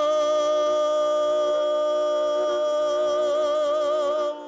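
A singer holds one long note of a Kazakh folk song over a steady bowed kobyz accompaniment. The note wavers slightly and breaks off just before the end.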